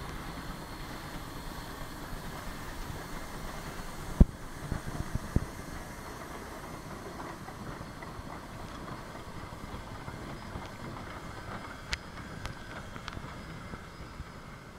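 Two Shay geared steam locomotives rolling slowly past at close range, with a steady rumble of running gear and exhaust. Several sharp knocks come about four to five seconds in, and a short click near twelve seconds.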